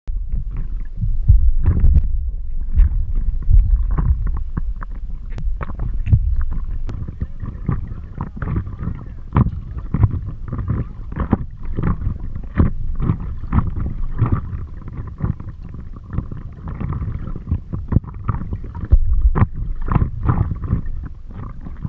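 Water sloshing and gurgling against the nose of a stand-up paddleboard right at the microphone, as a loud, uneven low rumble full of small splashes.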